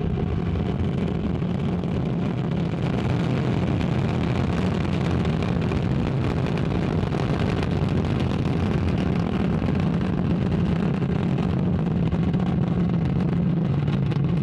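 Ariane 5 ECA rocket lifting off: its Vulcain main engine and two solid rocket boosters firing, a steady, loud rumble that grows slightly louder.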